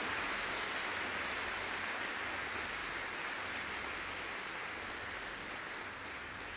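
A large audience applauding: a dense, steady clatter of many hands that slowly dies down.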